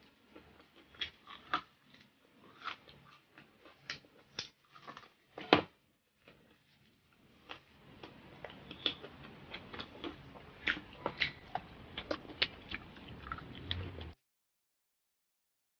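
Close-up chewing of crispy fried pork, with irregular crisp crunches and wet mouth clicks, one crunch louder than the rest about five and a half seconds in. The sound cuts off suddenly near the end.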